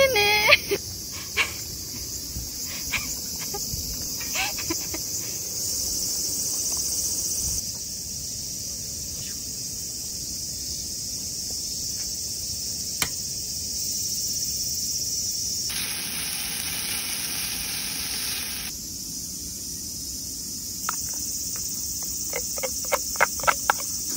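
Steady high-pitched chorus of insects chirring, which shifts in pitch and level a few times, with scattered light clicks and taps throughout.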